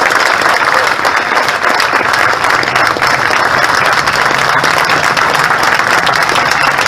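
Crowd applauding, many hands clapping densely and without a break.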